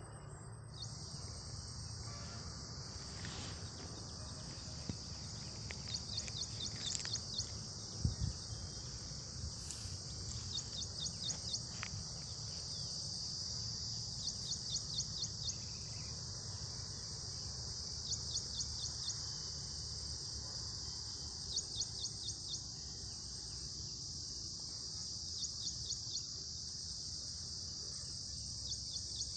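Steady high-pitched insect drone, cricket-like, with a short run of quick chirps repeating about every three to four seconds.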